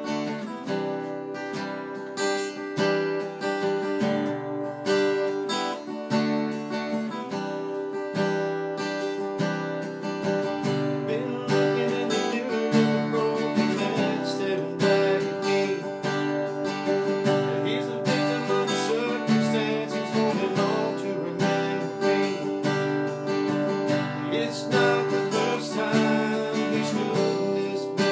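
Acoustic guitar strummed, playing chords in a steady rhythm as a song's instrumental opening.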